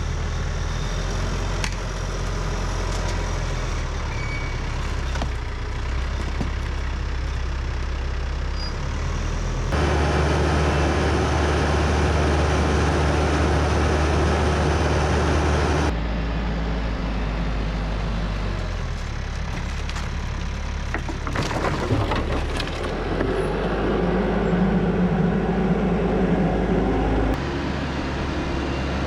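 TYM 574 tractor's diesel engine running steadily. The sound changes abruptly a few times between separate clips, louder and noisier in the middle stretch.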